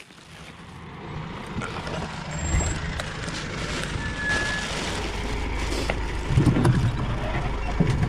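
A bus pulling up and running close by. Its engine rumble swells over the first couple of seconds and then holds, with a short high beep about four seconds in and a louder surge of engine noise near the end.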